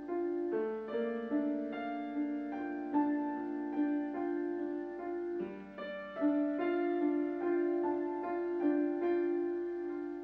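Background piano music: a slow melody of single notes and chords.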